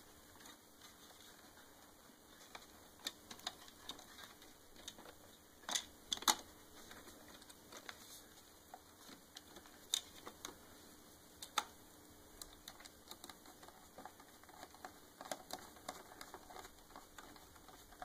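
Scattered light clicks and taps of plastic parts as a Roomba 550's bottom plate and brush guard are handled and fitted back onto its plastic underside, with a pair of sharper clicks about six seconds in.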